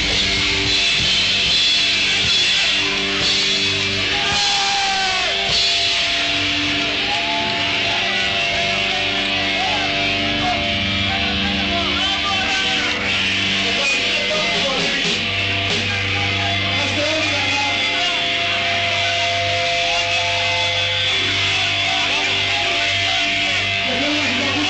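Thrash metal band playing live and loud: electric guitars, bass and drums with cymbals, heard from close up on stage.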